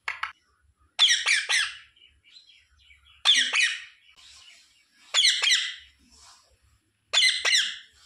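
Rose-ringed parakeet calling: a short call at the start, then four loud calls about two seconds apart, each a quick run of two or three notes.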